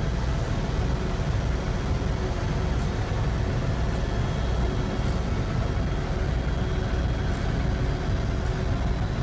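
Helicopter turbine engine and rotor noise: a steady low rumble with a faint high whine over it.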